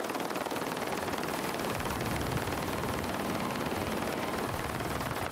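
Helicopter rotor and engine noise: a steady, rapidly pulsing chop over a dense rushing din, with more low rumble coming in about two seconds in.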